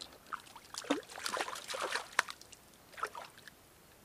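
Irregular splashing and sloshing of water in quick bursts that die away about three and a half seconds in: a hooked trout thrashing at the surface of the stream as it is brought in.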